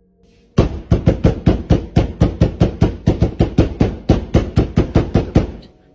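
Rapid, hard pounding on a pantry door, about five blows a second, starting about half a second in and stopping abruptly shortly before the end.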